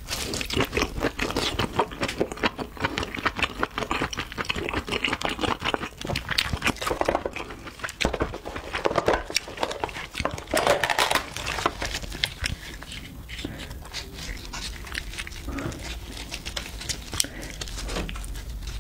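Close-miked wet chewing and mouth smacking on king crab meat, followed by gloved hands pulling apart the crab's body and shell with squelching and crackling. The dense chewing sounds are loudest for the first two-thirds, and the quieter tearing and picking follows.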